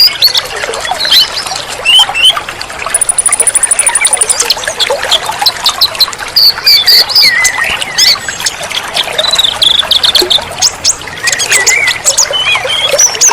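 Several wild birds chirping and whistling in quick short calls over trickling, babbling water. About three seconds in comes a rapid, very high-pitched trill lasting just over a second.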